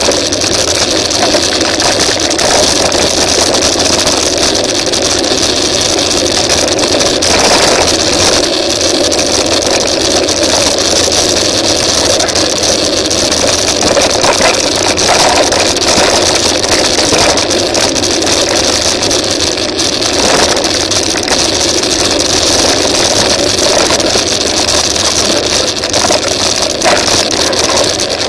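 Mountain bike rolling fast over a dirt and gravel forest track: a steady, loud rush of wind on the microphone and tyre noise, with many small rattles and knocks from the bumpy ground.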